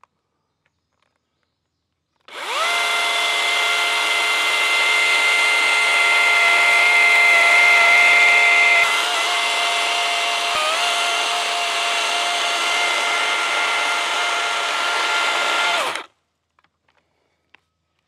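Circular saw cutting through a wooden post: the motor spins up with a rising whine about two seconds in, runs steadily at high speed, dips slightly in pitch twice midway, then stops abruptly near the end.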